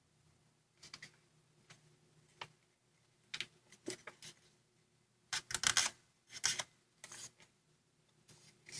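A 15 cm square of origami paper rustling and crackling as fingers fold it and press the creases: irregular short crinkles, the loudest cluster a little past the middle.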